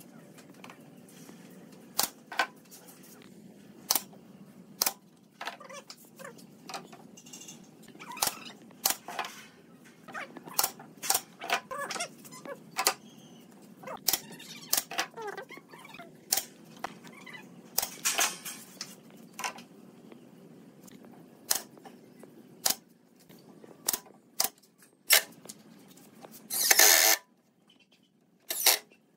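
Pneumatic nail gun firing brads into pine boards: sharp shots at irregular spacing, about one every second or so. Near the end there is a louder half-second burst from a cordless drill/driver.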